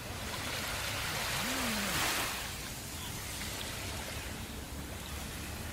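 Sea waves on a shore: a steady wash of surf, with one wave swelling and breaking about two seconds in before easing back.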